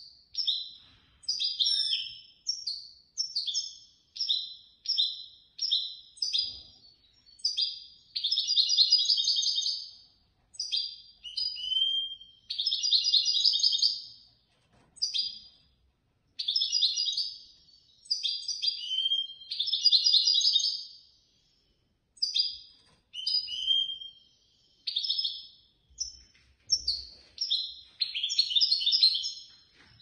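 European goldfinch singing: a run of short twittering phrases about one a second, broken by several longer, rapid trilled passages and brief pauses.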